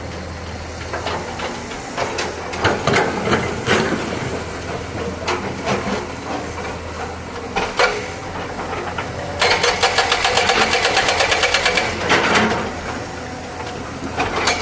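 Excavator's diesel engine running under scattered knocks and clanks from the machine at work. About two-thirds of the way in, a fast, even rattling clatter sets in for a couple of seconds, and it starts again near the end.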